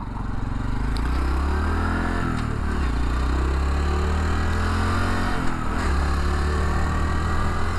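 2021 Honda Trail 125's single-cylinder engine accelerating, its pitch rising through the revs and dropping back twice, about two seconds in and again near six seconds, as it shifts up through the gears.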